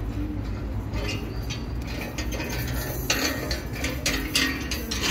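Market ambience: a string of sharp clicks and clinks like metal or crockery being handled, coming thickest in the second half, over a steady low rumble.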